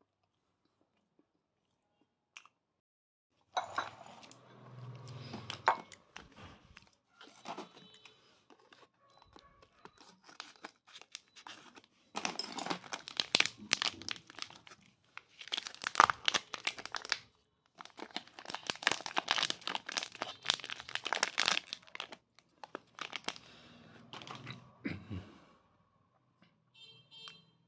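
Foil snack pouch of spicy chicken feet being torn open and crinkled by hand, in irregular crackling bursts that start a few seconds in and are loudest in the middle.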